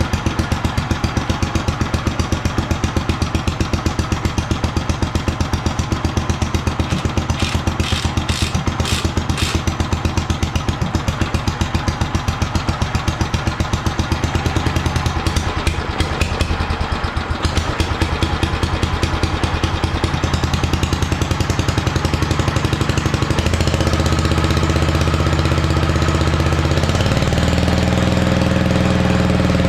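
Allis-Chalmers B-12 garden tractor's single-cylinder Kohler engine running at idle with an even, rapid firing beat. About two-thirds of the way through it speeds up and runs smoother, its pitch rising once more near the end.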